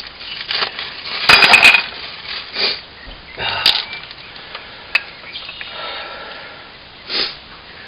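New metal-backed brake pads clinking and rattling as they are handled, with a loud cluster of clinks about a second and a half in and a few single sharp clicks after.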